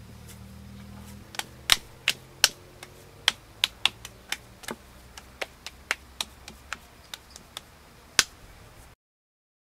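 Hands patting and slapping a ball of wet clay into a dome: a run of about twenty sharp, irregular pats, two or three a second, a few of them much louder than the rest.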